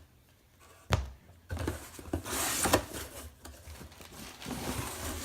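Helmet box and packing material being opened by hand: a sharp knock about a second in, then rustling and tearing of packaging.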